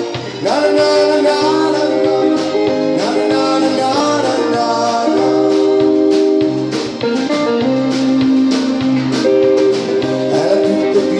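Live band playing the instrumental intro of a song: electric guitar lead over accordion, bass guitar and drum kit.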